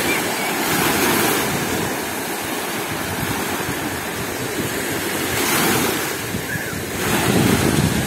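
Black Sea surf breaking and washing over the shallows, swelling and easing as each wave comes in, with wind buffeting the microphone.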